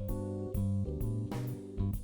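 Background music: plucked guitar and keyboard over a bass line, with a steady beat.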